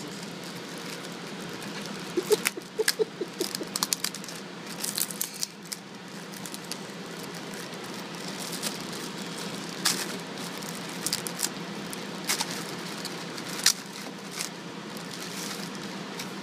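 Plastic bag being opened and handled, with irregular crinkles, rustles and small clicks in scattered clusters, over a steady low equipment hum.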